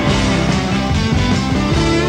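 Rock and roll band playing live through an instrumental break, with electric guitar over bass and drums and no singing.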